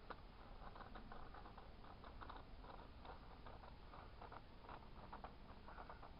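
Faint, irregular crackling and ticking from a can of expanding spray foam sputtering as it is dispensed into a gap around a window frame.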